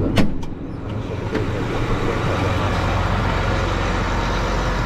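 Tractor engine running steadily, heard inside the cab, with a sharp click just after the start. The PTO driving the grain cart's auger has just been switched off, with the engine throttled down.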